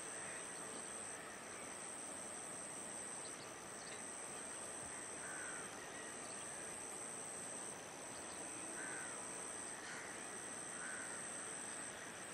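Faint outdoor ambience: a steady high-pitched insect drone that breaks off and resumes every second or two, with short falling bird calls every few seconds over a low steady hiss. The taxiing jet's engines are not clearly heard.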